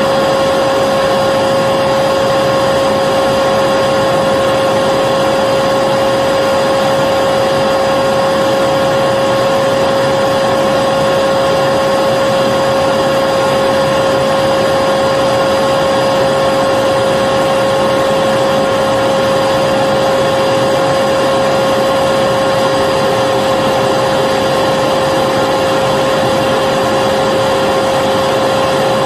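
Vacuum cleaner running steadily: an even rush of air with a constant whine from the motor, unchanging throughout.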